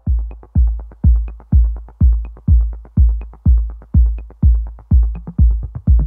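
Electronic background music with a steady, deep kick-drum beat, about two beats a second.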